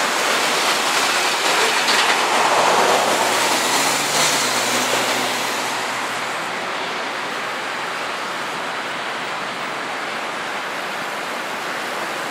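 Steady rushing noise of road traffic and wind, loudest for the first five seconds or so, then settling to an even level.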